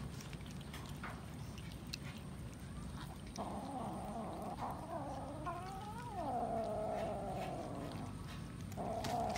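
A cat yowling while crowded in at food: one long drawn-out call starting about three seconds in, wavering up in pitch and then holding steady for several seconds, with a second call beginning near the end. This is the kind of yowl a cat makes to warn others off its food.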